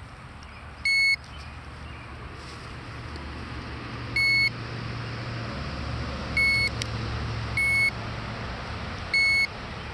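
Handheld digital fish scale beeping as its buttons are pressed: five short, identical high electronic beeps at uneven intervals, over a steady low rumble.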